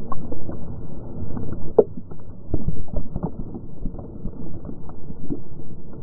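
Lake water splashing and churning around a GoPro mounted on a chocolate Labrador retriever's back as she plunges and swims on a retrieve. The sound is slowed down with the slow-motion footage, so it is a low, muffled rush with irregular sloshes and knocks.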